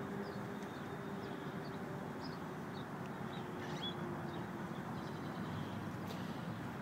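Steady outdoor background hum of traffic, with a faint drone that fades about four seconds in and scattered faint high bird chirps.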